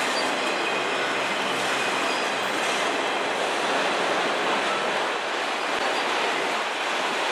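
Freight train's enclosed autorack cars rolling past at close range: a steady noise of steel wheels running on the rails.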